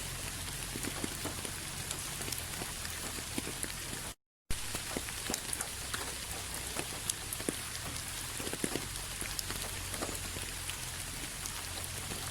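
Steady rain falling on a surface, a continuous hiss with many individual drops ticking through it. The sound cuts out completely for a fraction of a second about four seconds in.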